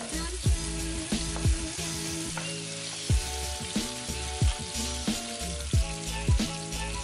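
Onions, garlic and tomato slices sizzling in hot oil in a nonstick wok while being stirred with a wooden spatula. Background music with a steady beat plays over it, its drum hits the loudest sound.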